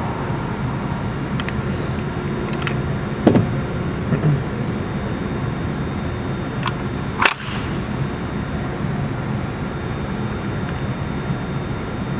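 Steady background noise of a shooting range with a few isolated sharp cracks, the clearest about three seconds in and about seven seconds in.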